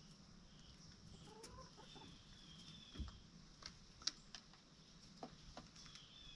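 Chickens clucking softly, with a few short calls and scattered sharp taps.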